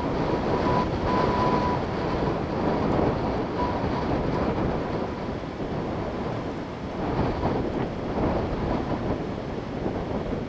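Strong wind gusting through trees, a loud rushing roar that swells and eases, with wind rumbling on the microphone. A faint thin whistle-like tone runs through the first few seconds.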